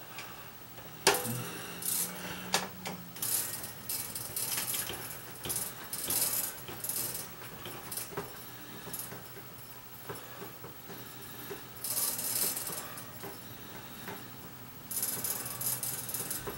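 Small handheld flashlight being handled and twisted apart. There is a sharp click about a second in, then on-and-off light scraping and rattling of its parts.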